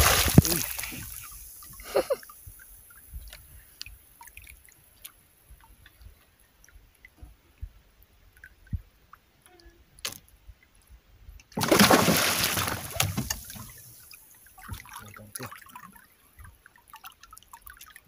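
Hooked bigeye trevally thrashing at the surface beside the boat, throwing up spray. There is a burst of splashing at the start and another about twelve seconds in, with faint drips and small ticks between.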